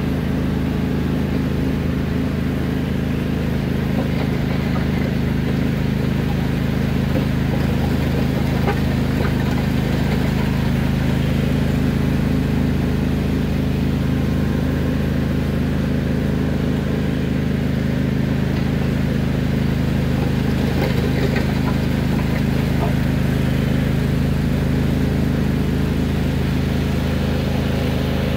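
Riding lawn mower engine running steadily at a constant speed as the mower pushes gravel with its front blade.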